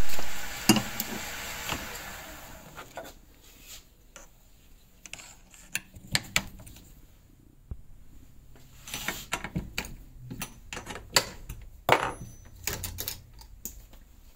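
Lathe spinning down to a stop, its hum fading over the first two or three seconds; then scattered metallic clicks and clanks as the three-jaw chuck is opened and the cue shaft is taken out of it.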